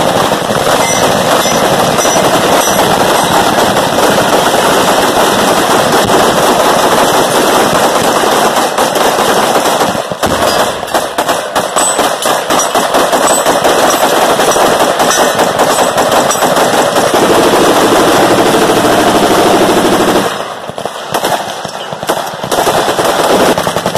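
A whole firing line of rifles and other guns shooting rapid-fire at once in a 'mad minute', the shots overlapping into continuous gunfire. About twenty seconds in it thins to scattered shots, then picks up again near the end.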